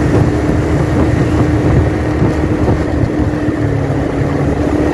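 A motorcycle engine running at a steady cruising speed, heard from the rider's seat, with road noise underneath and one steady engine note.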